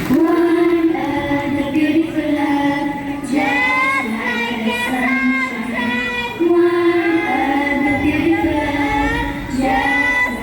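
Singing in high voices: a slow melody of long held notes that comes in suddenly.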